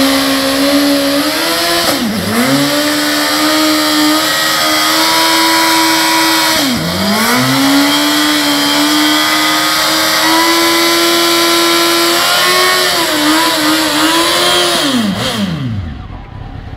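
Honda CBR929RR Fireblade's inline-four engine held at high revs in a burnout, the rear tyre spinning on the asphalt. The revs dip and climb back twice, about two and seven seconds in, waver a little, and near the end fall away to idle.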